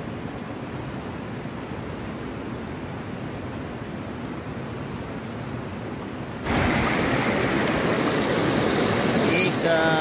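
River water rushing over rocks in small rapids, a steady rush. About six and a half seconds in it jumps abruptly to a louder, brighter rush of shallow water streaming close by.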